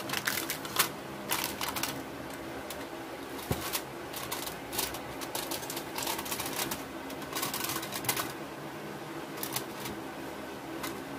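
Aluminium foil crinkling in short, irregular bursts of crackle as it is pressed and folded over small metal llanera molds.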